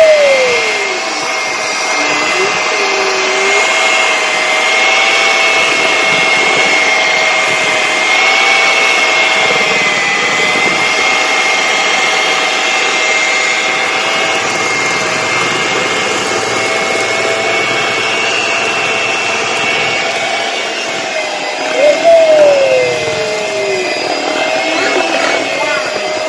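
Electric hand mixer running steadily with a motor whine, its beaters churning cake batter of flour, coconut, raisins, eggs and milk in a stainless steel bowl. About 22 seconds in there is a brief, louder sound that falls in pitch.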